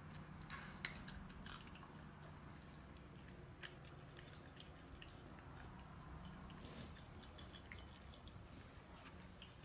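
Cats crunching dry kibble from ceramic bowls: faint, irregular crunching and small clicks, with one sharper click about a second in.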